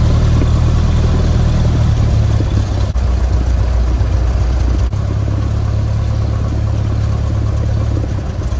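Light training airplane's piston engine and propeller running at low power during taxi, heard from inside the cockpit, its note shifting slightly about two seconds in and again around five seconds.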